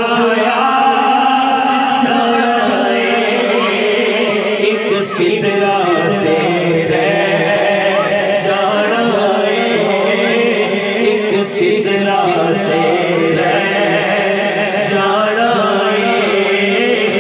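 Male voice singing a Punjabi naat in a melismatic chant style, amplified through a microphone and PA, with long held and ornamented notes over a steady drone.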